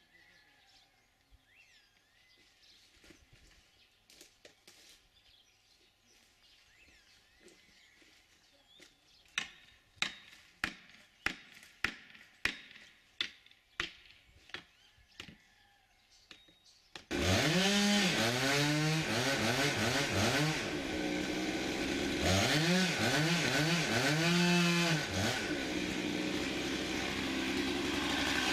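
A row of about ten sharp knocks, then a gasoline chainsaw starts suddenly and loudly about two-thirds of the way in. It is revved up and down several times, then held at high speed.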